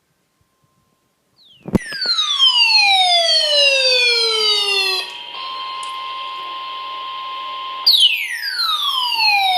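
An electronic siren-like tone with many overtones, sliding down in pitch over about three seconds, twice: once just under two seconds in and again about eight seconds in. A steady tone near 1 kHz and a hiss hold between the two slides.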